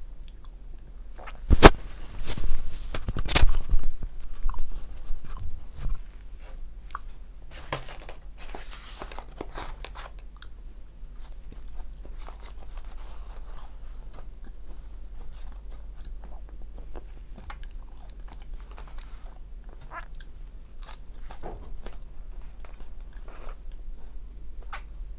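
Close-up eating sounds of McDonald's french fries being bitten and chewed, with small wet clicks of the mouth. A few loud knocks and rustles come about two to four seconds in, and a rustling patch comes around eight seconds in.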